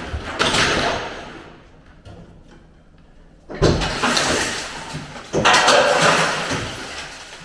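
Metal bangs and scraping as a rusty Ford Capri body shell is shifted onto a rollover jig. There is a sudden loud bang about three and a half seconds in, then a longer loud stretch of scraping and knocking.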